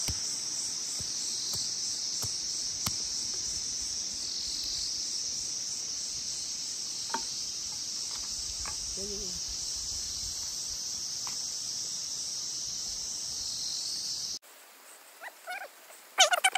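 Dense, steady high-pitched chorus of insects from the surrounding forest, swelling slightly every couple of seconds, which cuts off suddenly about fourteen seconds in.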